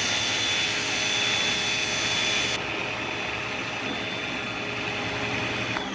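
Greenworks 1700 psi electric pressure washer running with the turbo nozzle fitted: a steady motor whine over a hiss. The hiss drops about two and a half seconds in, and near the end the motor shuts off and winds down.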